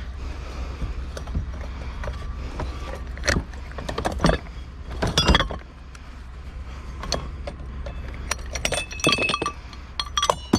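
Metal and glass scrap being handled and broken apart: scattered clinks and clatters, with a louder clatter about halfway through and ringing clinks near the end. A steady low hum runs underneath.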